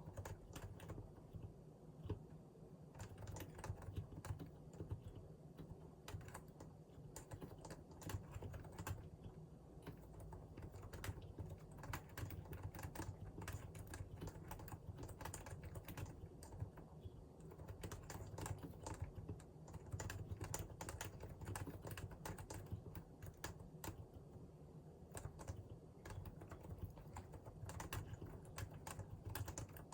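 Continuous typing on a Realforce R2 PFU Limited Edition keyboard with Topre electrostatic capacitive switches: a dense, steady run of keystrokes without pause.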